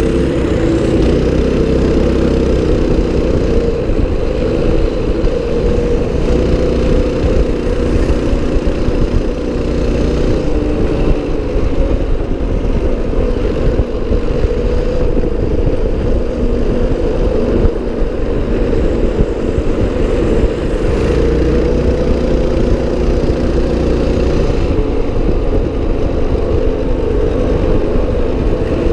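Mini bike's small single-cylinder engine running steadily at riding speed, with wind buffeting the microphone.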